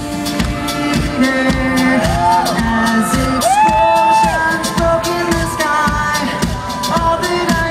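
Live rock band playing loudly through a concert sound system: a sung melody over a steady drum beat, with shouts from the crowd.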